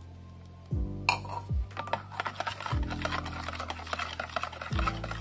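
Wire balloon whisk beating an egg-yolk and sugar-water mixture in a bowl: fast, dense clicking and scraping strokes of the wires against the bowl, starting about a second in.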